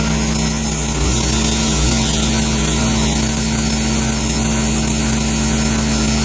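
Wood-Mizer LX150 band sawmill running steadily, its blade cutting a slab from a magnolia log, with a constant low hum under a hiss.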